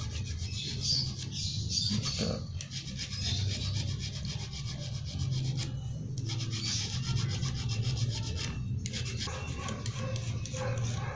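Small hand file rasping a metal RC truck axle in quick back-and-forth strokes, shaving down the axle's diameter so that a new gear will fit over it.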